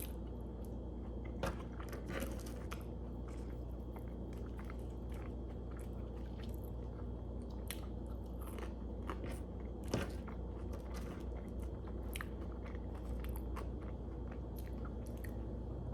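A person chewing and biting food close to the microphone: quiet mouth sounds and a few faint clicks over a steady low hum.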